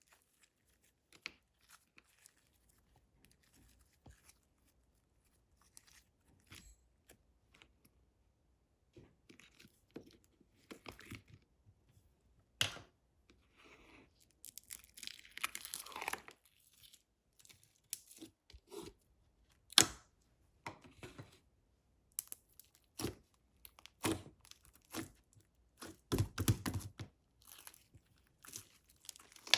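Hands squeezing, poking and stretching a soft frosting-type slime. It makes scattered sticky clicks and pops, with a longer squishing stretch about halfway through and a denser run of squishes near the end.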